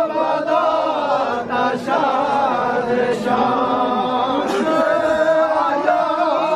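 A crowd of men chanting a Farsi noha, a Shia lament for Muharram, in unison in a drawn-out sung melody.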